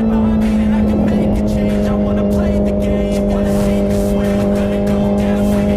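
Honda CBR650R's inline-four engine running at a steady, fairly high engine speed through an IXIL full-system exhaust with the dB killer removed: one held note that barely changes in pitch.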